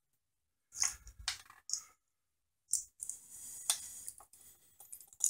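Light clicks and taps of CR2032 coin cells being poked out of a small 3D-printed plastic battery-and-switch holder: about half a dozen scattered sharp clicks with short gaps between them.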